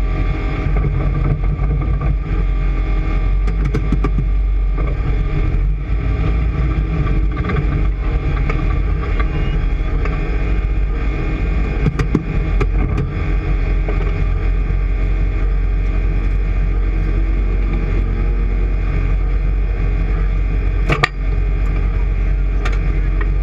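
An engine running steadily at a constant speed, with one brief sharp crack near the end.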